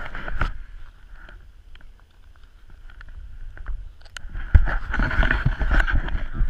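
Handling noise from a hand-held action camera: knocks and rubbing against clothing, with wind buffeting the microphone. It is quieter in the middle, then from about four and a half seconds in there is a dense run of low thumps and rustling.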